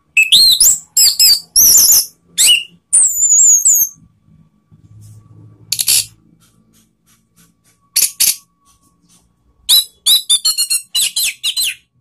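Orange-headed thrush (anis merah) singing loud, fast phrases of sweeping whistled notes. The song comes in bursts: a dense run over the first few seconds, short single phrases around the middle, and another quick run of notes near the end.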